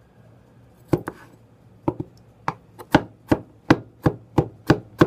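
Chinese vegetable cleaver chopping garlic on a wooden cutting board: sharp knocks of the blade striking the board as the cloves are minced. The chops begin about a second in and quicken into a steady rhythm of about three a second.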